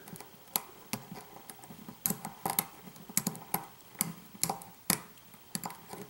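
A thin hook pick working the pins of a pin-tumbler lock under tension: a dozen or so sharp, irregular metallic clicks and taps as the pins are lifted and set.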